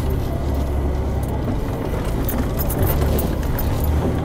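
Off-road 4x4's engine running at low, steady revs as it drives slowly along a dirt trail, with scattered light rattles and clicks.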